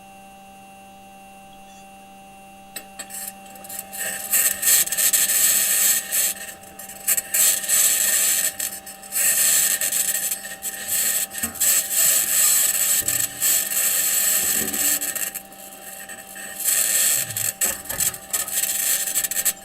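Perseverance Mars rover's metal wheels grinding and scraping over rock as it drives, in long, rough, crackly stretches broken by short pauses. A low steady hum runs underneath, and the scraping starts a few seconds in.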